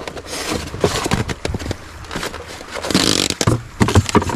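Close handling noise: rustling and scraping with scattered clicks and knocks, and a longer rustle about three seconds in.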